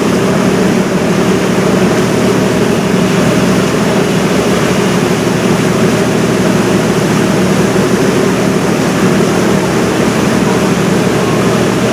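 River cruise boat's engine running with a steady drone, over a constant rush of wind and water.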